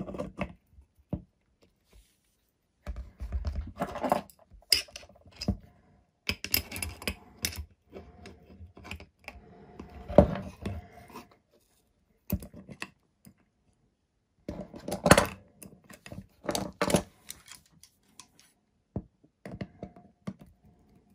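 Steel pliers and adjustable spanners clicking, clanking and scraping against the shaft nut of a 90mm EDF fan unit as the nut is worked with the motor held by a second tool. The sounds come in irregular bursts with short pauses, and one sharp clank about halfway through is the loudest.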